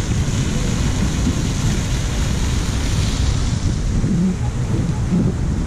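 Wind buffeting the microphone: a loud, steady rumble with a hiss above it.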